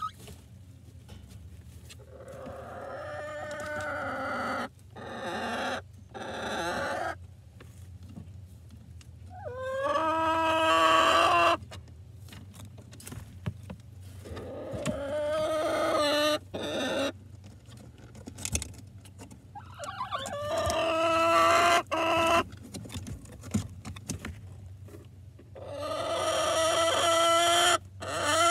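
Chickens calling at close range: repeated drawn-out calls, each a couple of seconds long and growing louder before breaking off, with quieter clucking between.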